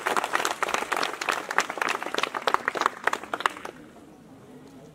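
A group of people clapping, quick irregular claps that stop about three and a half seconds in.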